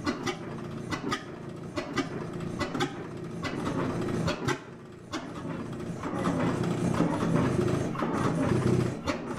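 Large vintage twin-cylinder flywheel gas engine running slowly, with a sharp firing beat a little more than once a second over steady mechanical clatter. It grows louder and busier about six seconds in.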